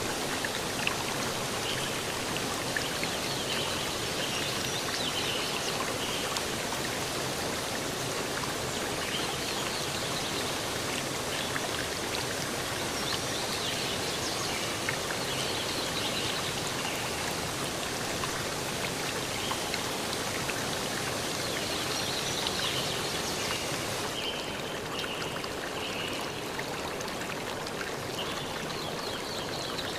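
Steady rushing water, with faint, short high blips scattered through it. The very top of the sound thins out about 24 seconds in.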